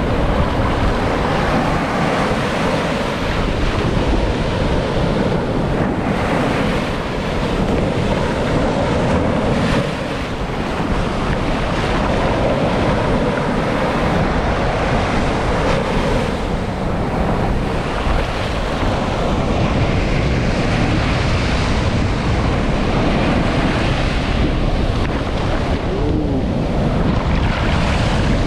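Rough ocean surf washing and breaking on the shore, a steady loud rush of noise with wind buffeting the microphone.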